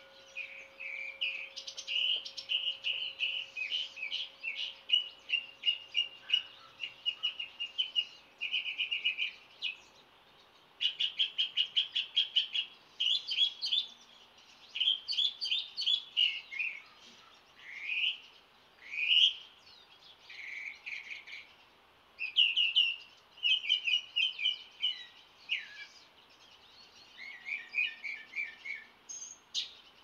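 Dawn chorus of several songbirds, with overlapping chirps and trills, a quick run of repeated notes, and short sweeping whistles.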